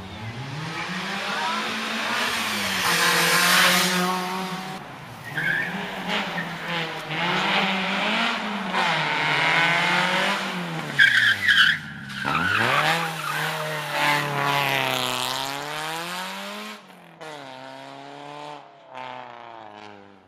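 Rally car engine revving hard and climbing through the gears, the revs dropping sharply on each lift and once deeply as it brakes for the bend, with brief tyre squeal. It pulls away and fades near the end.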